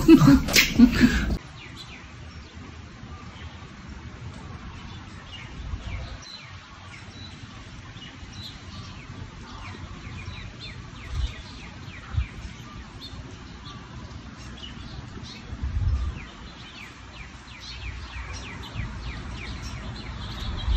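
Many small birds chirping together, a steady chorus of quick high chirps, with a few low rumbles of wind on the microphone.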